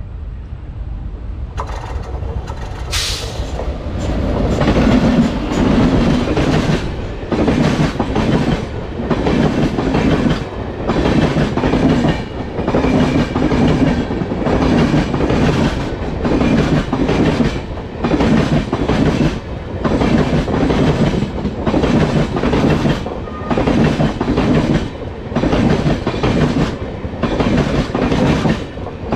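Indian Railways train wheels clattering over rail joints and points as the train changes track, a rhythmic clickety-clack of heavy beats about once a second. The clatter builds over the first few seconds, with a brief sharp high sound about three seconds in.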